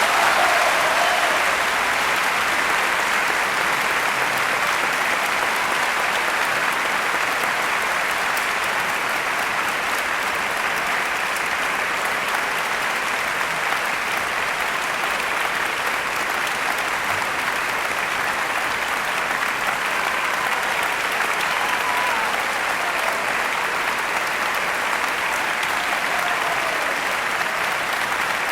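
A large crowd applauding: dense, sustained clapping that holds steady, with a faint whistle or cheer here and there.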